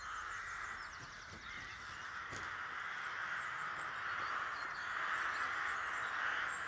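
A large flock of rooks cawing together, many calls merging into a dense, continuous din that grows a little louder partway through.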